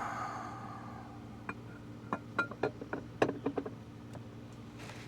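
A run of light clicks and knocks, about a dozen over two seconds or so, as the intake grate and its bolts are handled and set against the jet ski's hull, over a faint steady low hum.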